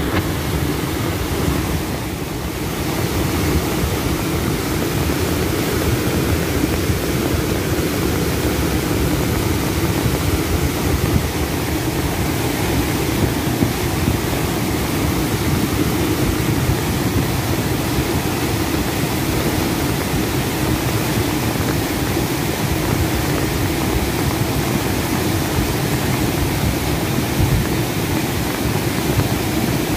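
River in flood rushing past, a loud, steady roar of fast water with no break.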